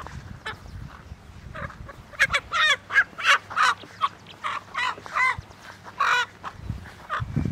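Rooster carried upside down by its legs, squawking: a quick run of about ten short calls starting about two seconds in, and one more loud call about six seconds in.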